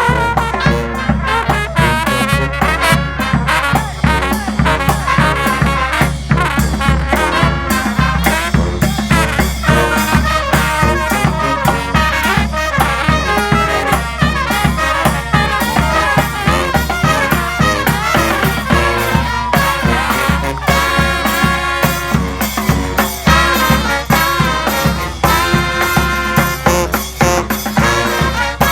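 Street brass band playing an upbeat tune: trumpets and trombones over a steady drum beat.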